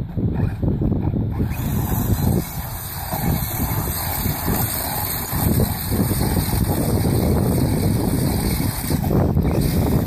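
Remote-control car running on a dirt track, its wheels spinning in loose dirt, with a steady hiss from about a second and a half in until near the end. Heavy wind buffets the microphone throughout.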